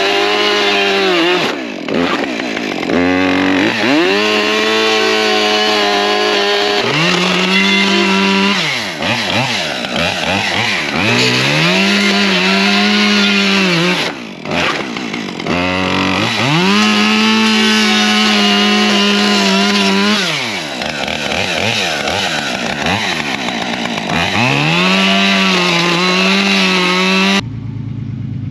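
Two-stroke chainsaw revving up again and again, holding high and dropping back, as it cuts through plastic car interior trim. In the last second it gives way abruptly to a car engine running.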